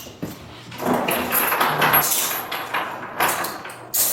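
Metal handcuffs clinking and clicking as they are handled, mixed with the rustle of people moving; the clatter starts about a second in and eases off near the end.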